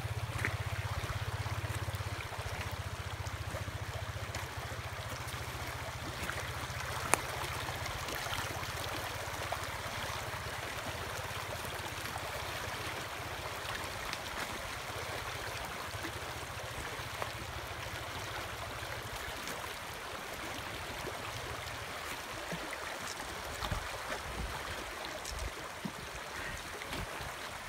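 Shallow mountain creek running steadily over cobbles and stones. For the first two-thirds a low rumble lies under it, and there is a single sharp click about a quarter of the way in.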